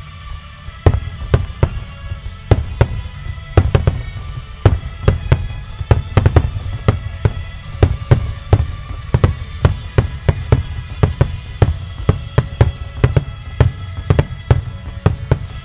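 Starmine fireworks firing in a rapid volley: sharp shell bursts, several bangs a second, starting about a second in, with music playing underneath.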